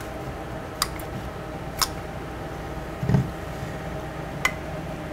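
Hand caulk gun clicking as its trigger is squeezed to lay a bead of caulk: three sharp clicks spaced a second or more apart, with a soft thump about three seconds in, over a steady low hum.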